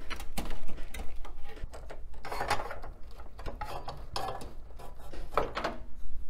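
Handling noise inside a metal computer tower: a run of clicks and knocks with a few short scraping rustles as cables are unplugged and the hard drive is worked out of its bay.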